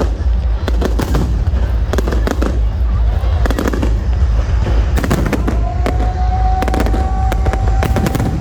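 Fireworks display: a dense run of sharp firework bangs and crackles over a continuous low rumble. A steady high whistling tone comes in for the last few seconds.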